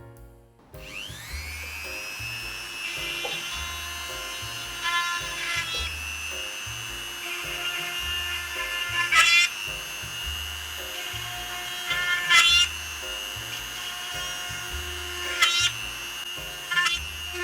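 Goxawee G4007 rotary tool with a drill bit spinning up about a second in and holding a steady high whine. A drill bit presses into the workpiece about five times, each time giving a louder, rasping burst as it cuts a hole.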